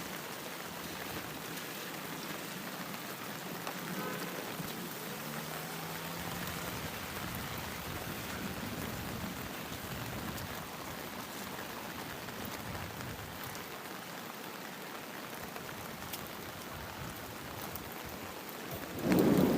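Steady rain falling and pattering on surfaces, an even hiss with no break. Near the end a sudden louder low thump rises above the rain.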